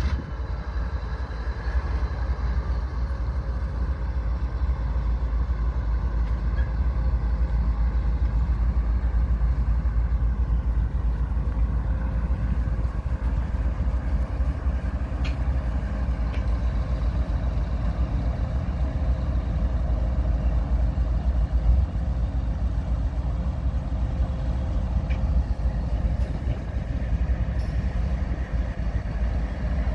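Diesel-electric freight locomotives pulling a train slowly past, their engines running in a steady low drone with no horn.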